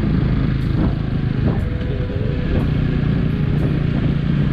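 Motorcycle being ridden at a steady pace: a low, steady motor hum under wind and road noise.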